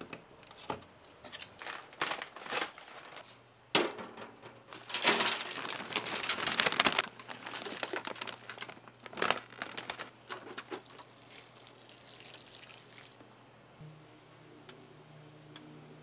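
Disposable aluminium foil pan crinkling and potting soil rustling as it is handled and poured into the pan. Scattered clicks and knocks run throughout, and the loudest, densest rustling comes in the middle.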